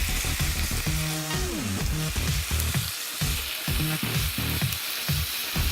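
Chopped onions and bell peppers sizzling steadily as they sauté in hot olive oil and balsamic vinaigrette in a stovetop pan.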